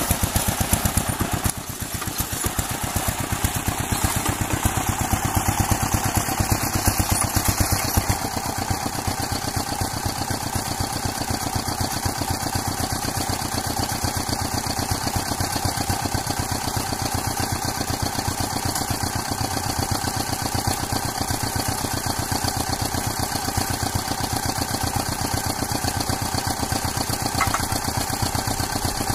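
An engine running steadily at idle, with an even, rapid pulse. It dips briefly about two seconds in, then settles.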